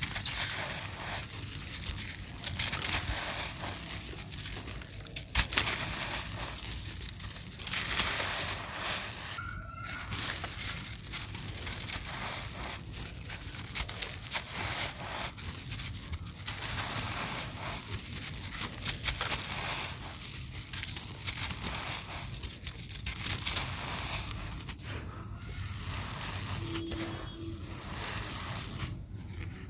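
Gritty dry cement shapes being crumbled and crushed, a continuous grainy crunching with a few sharp snaps and brief pauses.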